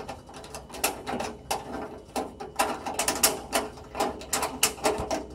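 Flathead screwdriver turning a PITT cooktop's set screw up against the heat conductor: a run of irregular small metal clicks and scrapes as the screw is tightened.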